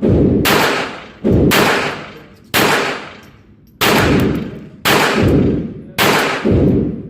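Walther P22 pistol firing .22 Long Rifle rounds: six shots about a second apart, each trailing off in a long echo.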